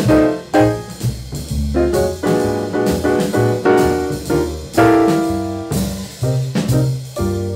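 Small-band jazz recording: held melody notes over piano, a stepping bass line and drums.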